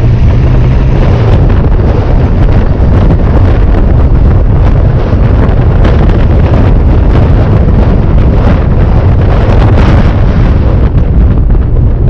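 Supercharged Dodge Charger 3.6-litre V6 on the move, loud and steady, with heavy wind buffeting the microphone over the engine and road noise.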